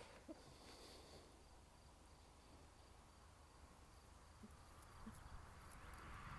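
Near silence: faint outdoor ambience with a few soft ticks, and a faint rushing noise that swells near the end.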